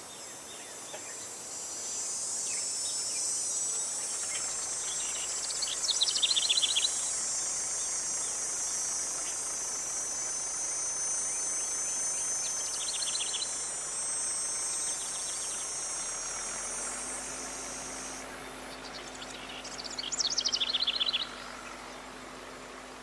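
Rural outdoor ambience: a steady high-pitched insect chorus, with a bird's short trilled call repeating roughly every seven seconds. A low steady hum joins about two-thirds of the way in.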